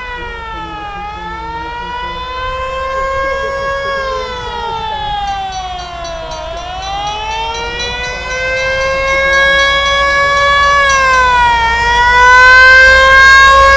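A siren wailing, its pitch sliding slowly up and down every few seconds, with two rising and falling tones crossing about halfway through and the sound getting louder toward the end.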